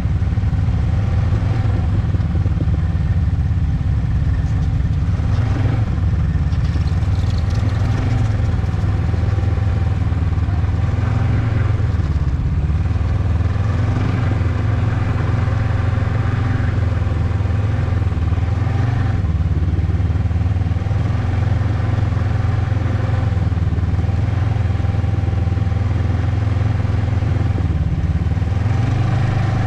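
Ski-Doo Expedition SE snowmobile running steadily while riding along a snow trail, heard from the sled itself: a loud, even low drone with a steady engine tone whose pitch shifts slightly a few times as the throttle changes.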